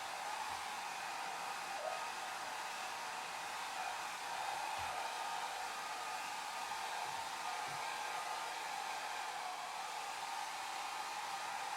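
Hair dryer running steadily: an even rushing hiss of blown air with a faint motor hum, strongest in the middle range, without any change in speed.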